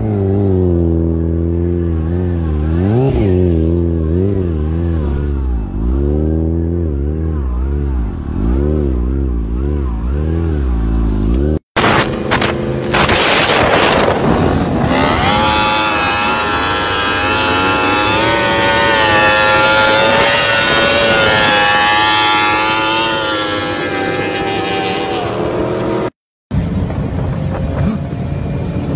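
Motorcycle engines in clips cut together. First an engine keeps rising and falling in pitch as it revs and changes speed. After a sudden cut about 12 seconds in, a louder, higher-pitched engine with a lot of rushing noise climbs in pitch and later drops away, before another cut a few seconds before the end.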